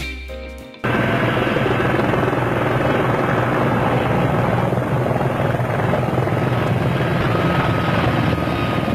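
Large military transport helicopter flying low and close: loud, steady rotor and turbine noise with a faint high whine, cutting in abruptly about a second in as the last of some guitar music stops.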